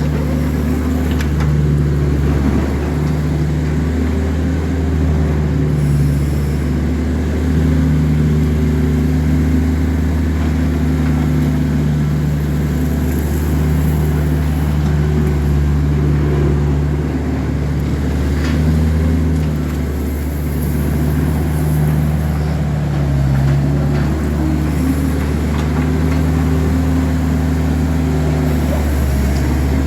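A motor running steadily with a low hum whose pitch shifts slightly now and then.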